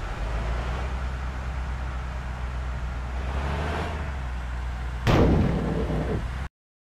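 Heavy road vehicle traffic, a bus or truck engine rumbling low and steady as it passes. About five seconds in there is a sudden loud burst of noise, and the sound cuts off abruptly near the end.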